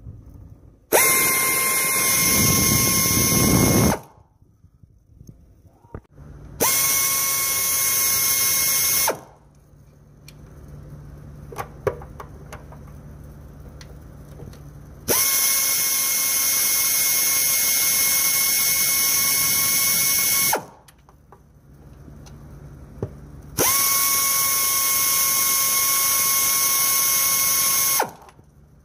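An electric power tool driving out intake manifold bolts, running four times at a steady, even pitch with sudden starts and stops, the longest run about five seconds. Light clicks of the tool and socket come between the runs.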